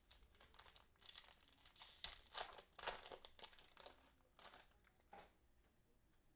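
Cellophane wrapper of a trading-card cello pack crinkling and tearing as the pack is opened: faint, irregular crackling that dies away after about five seconds.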